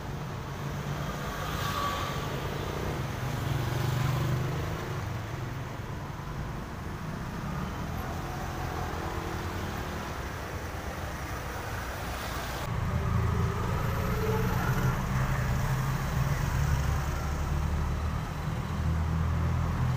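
Road traffic passing: a steady low engine rumble that swells as vehicles go by, louder in the second half.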